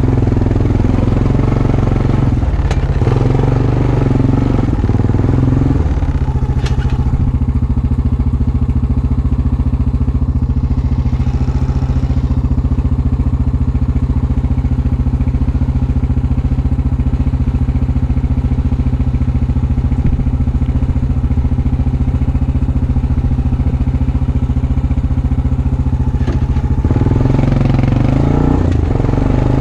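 2017 Honda Recon 250 ATV's single-cylinder engine running, its revs changing over the first few seconds, then holding a steady speed for about twenty seconds before changing again near the end.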